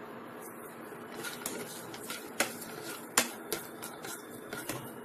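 Cut almonds and cashews frying in ghee in a nonstick kadai: a steady low sizzle with scattered sharp clicks and taps as a spatula stirs them.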